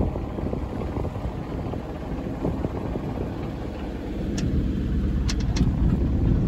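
Steady low rumble aboard a sailboat under way at sea, with a few sharp clicks about four and five seconds in.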